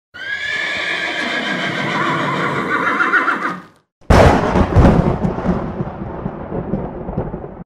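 A horse whinny sound effect lasting about three and a half seconds, then, after a brief gap, a sudden loud boom that rumbles on and slowly fades.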